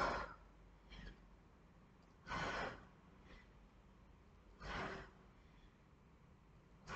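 A woman breathing hard through push-ups: short, forceful breaths about every two and a half seconds, with a fainter one about a second in.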